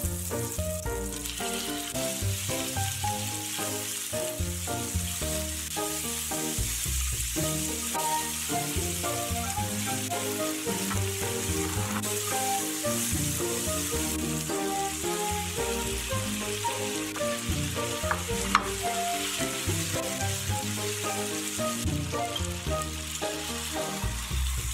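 Oil sizzling in a cast-iron pan as chopped scallion and garlic, then chicken pieces, are stir-fried, with the scrape of stirring. Light background music plays along, and there is a single sharp click about three-quarters of the way through.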